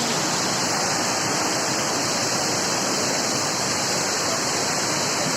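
Waterfall running over rocks: a steady, even rush of falling water, fairly loud and close.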